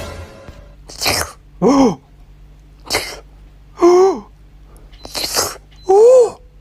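A series of sharp sneezes, four in all, alternating with three short squeaky cries that rise and fall in pitch.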